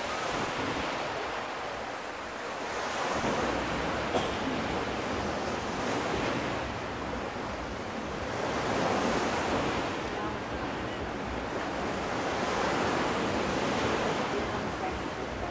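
Small Black Sea waves washing onto a sandy beach, the surf swelling and fading every few seconds, with wind buffeting the microphone.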